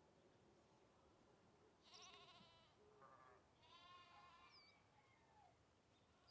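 Faint bleating calls of an animal, three short wavering cries about two, three and four seconds in, over low background hiss.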